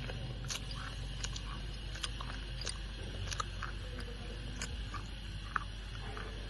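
Wet slate pencils being chewed close to the microphone: scattered crisp crunches and crackles, about one or two a second, over a steady low hum.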